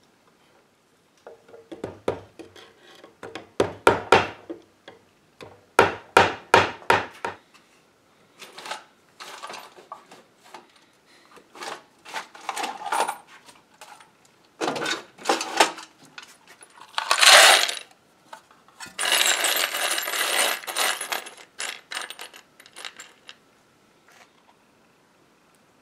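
Loose metal screws clinking and rattling as a hand sorts through a tray of them, with clicks and knocks from small plastic parts-cabinet drawers being handled. The clatter comes in separate clusters, densest and loudest past the middle.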